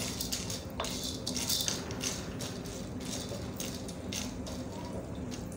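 Hard, unpopped popcorn kernels being stirred in oil with a wooden spoon in a black wok, rattling and scraping against the metal in a quick, irregular clatter.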